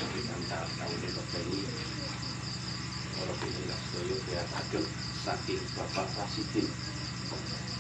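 Crickets chirping in a steady, even pulse over a constant low hum, with faint murmuring voices.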